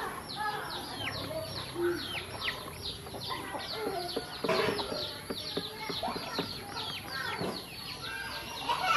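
A group of ducklings peeping continuously, many short high calls sliding down in pitch and overlapping one another, with a louder flurry about halfway through.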